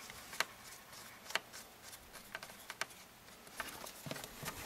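Faint, irregular light clicks of a small precision screwdriver working the screws of a stainless steel pocket clip into a folding knife's handle: metal tip on screw heads, and clip and knife knocking lightly on the bench.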